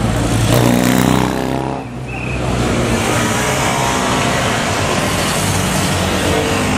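A motorcycle passes close by, its engine note swelling and then falling away within about the first two seconds. After that, steady street noise of traffic and a milling crowd.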